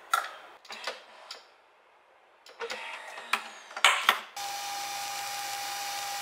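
Capsule coffee machine being loaded and started: clicks and knocks as its head is shut and a ceramic mug is set on the drip tray, then about four seconds in the machine starts brewing with a steady whirring hum and a held tone.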